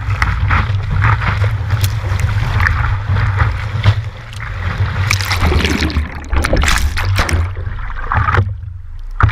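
Surfboard riding a breaking wave: water rushing and spraying against the board and the board-mounted camera, with a heavy low rumble and frequent splashes. Near the end the rush drops away, leaving only small splashes and lapping.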